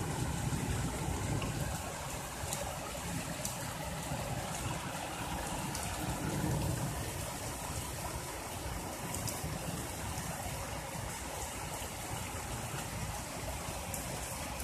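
Storm runoff flowing down a flooded street as a steady watery rush, with rain falling and a few scattered high ticks.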